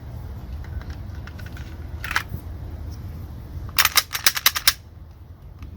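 Glock 17 pistol being handled: a few faint ticks, then a sharper click about two seconds in. A little under four seconds in comes a quick run of about eight loud, sharp clicks, and one more follows near the end.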